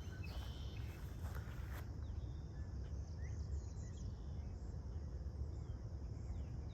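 Outdoor nature ambience: scattered short bird chirps and a steady high insect drone over a low, constant rumble.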